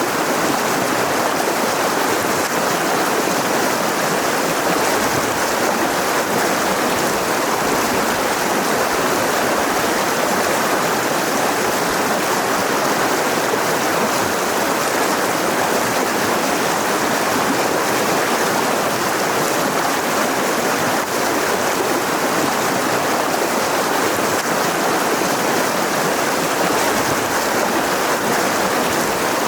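Mountain river rushing steadily over rocks, an even unbroken noise of water.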